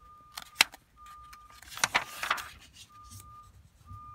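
Pages of an old paper desk diary being turned by hand: a sharp click, then a rustle of paper about two seconds in. A faint short beep repeats in the background every second or so.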